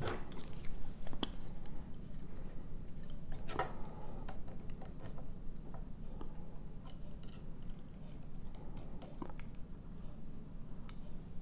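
Scattered light metallic clicks and taps of small lock pins and springs being handled and picked out of a gutted ABUS dimple padlock. A faint steady low hum runs underneath.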